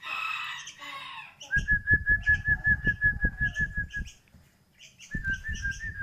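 Young sooty-headed bulbul (kutilang) fledgling calling: a steady, wavering high call from about a second and a half in to about four seconds, and again near the end, over a rapid patter of soft low thumps. Short high chirps repeat throughout. The bird is about a month old and still learning to sing.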